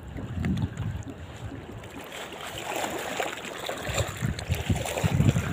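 Shallow seawater sloshing and trickling over reef rocks, growing louder from about two seconds in, with gusts of wind buffeting the microphone.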